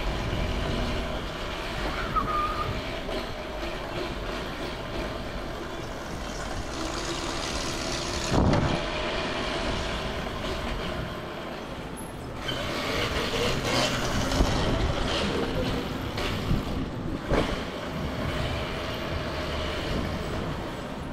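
Sur-Ron electric dirt bike riding steadily along a tiled floor: the electric drive hums and the tyres rumble, and a sharp knock comes about eight seconds in. It gets a little louder for a few seconds past the middle.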